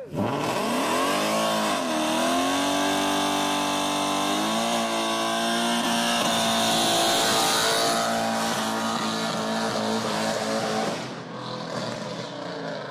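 Car engine revving hard and held at high revs for a burnout, with a hissing tyre squeal over it. The revs dip and climb again about a second in and fall away near the end.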